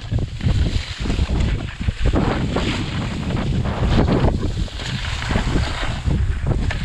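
Wind buffeting an action-camera microphone over the hiss and scrape of telemark skis sliding on groomed snow. The scraping swells and fades every second or so as the skis turn.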